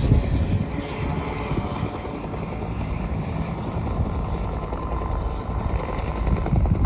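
Propeller engine of an aerobatic airplane droning steadily as it flies a display routine overhead.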